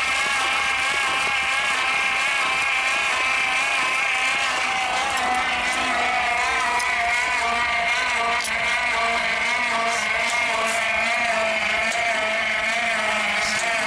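Electric starter cranking a 1956 Packard 374 V8 over steadily with its spark plugs out, a continuous whine that wavers slightly, the engine not firing. The valves on one bank are not seating, so those cylinders make no compression.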